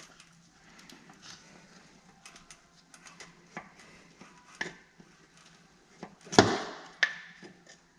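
Small metal clicks and taps of hand tools working at the clutch hydraulic line's quick-connect fitting, with a louder, half-second scraping clatter about six seconds in and a sharp click just after it.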